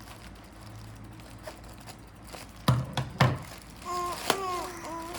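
Cardboard parcel being handled while it is opened: faint rustling, then two loud thumps about half a second apart, then a steady pitched tone lasting about a second near the end.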